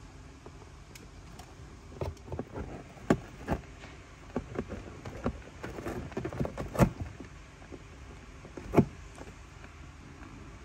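Cat biting and clawing at the corner of a cardboard box: a run of irregular scrapes and taps of teeth and claws on cardboard, starting about two seconds in, with a few sharper knocks among them.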